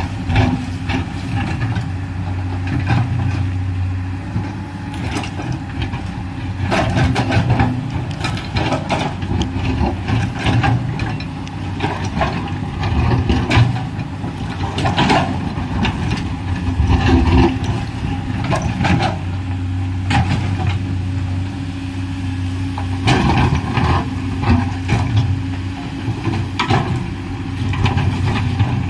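Komatsu PC210LC excavator's diesel engine running, its level rising and falling as the machine works. Frequent irregular knocks and clatters run through it.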